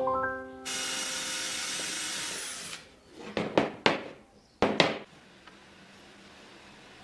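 Power tool working on wood for about two seconds, then stopping, followed by five or six sharp knocks as the piece is handled.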